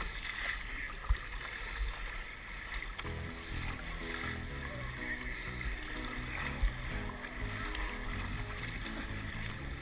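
Wind and water sloshing against a kayak's hull on choppy water, with low wind rumble on the microphone. Background music comes in about three seconds in and carries on over the water noise.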